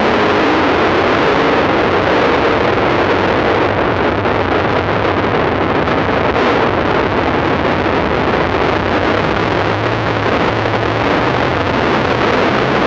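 Dirt late model race cars' V8 engines running hard through the turn, heard as a loud, steady, blurred din with no clear engine note. The sound grows a little deeper near the end as a car slides past close by.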